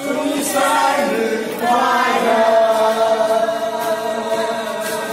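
A group of adults singing together in chorus, holding long notes.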